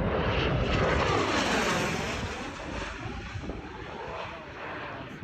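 An airplane flying low overhead with a loud rushing noise that fades after about two seconds as it passes.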